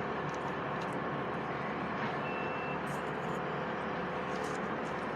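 Steady running of heavy work-site machinery, with one short high beep from a backup alarm a little over two seconds in.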